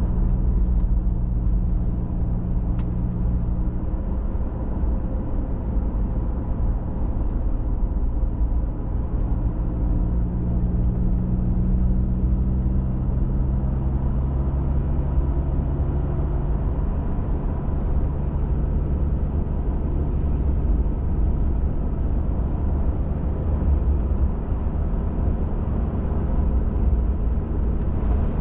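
Steady engine hum and low road rumble of a pickup truck driving at an even pace, heard from inside the cab, the engine's pitch drifting slightly up and down.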